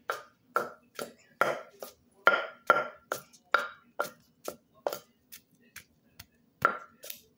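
Wooden pestle pounding in a clay mortar, knocking about twice a second with a short lull near the end, as ingredients are pounded for a spicy Lao-style salad.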